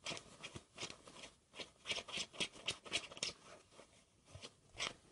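Faint, irregular scratching and clicking from a cat squirming against a fabric bedspread, a quick run of small ticks that is thickest around the middle.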